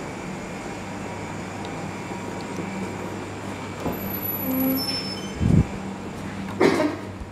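Steady hum of bakery machinery and ventilation. About five and a half seconds in, a heavy wooden door gives a low thump as it is pushed open, followed a second later by a sharp knock.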